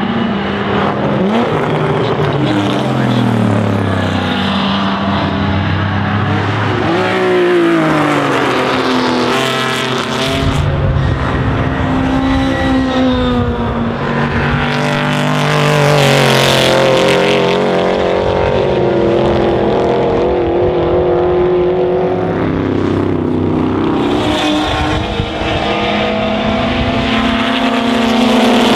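Several 1960s GT race cars passing at full racing speed one after another. Their engines climb in pitch, drop sharply at each gear change, then climb again, and several cars overlap.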